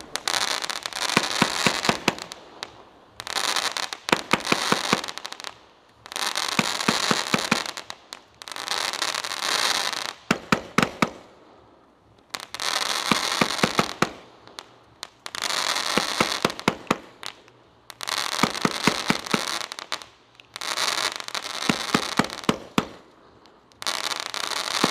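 Consumer fireworks going off in a steady series of about nine bursts, one every two to three seconds. Each burst is a run of sharp pops over a crackling hiss lasting a second or two, with a short lull between bursts.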